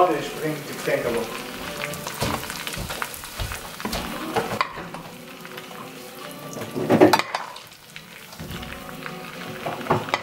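Melted butter with chili flakes sizzling and crackling in a non-stick frying pan while a spoon stirs it and ladles it out, with a louder burst about seven seconds in.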